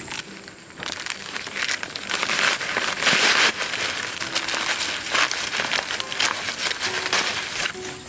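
Dry corn leaves and husks rustling and crackling in irregular bursts, with short sharp cracks, as corn is picked by hand among the stalks.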